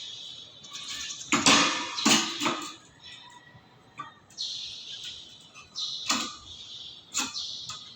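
Metalwork on steel: a run of sharp knocks and clanks, with stretches of hissing noise between them.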